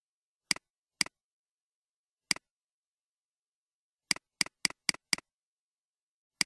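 Computer mouse button clicking, each click a quick press-and-release double tick. Two clicks about half a second apart come first, then one more, then a quick run of five about a quarter second apart, and another near the end.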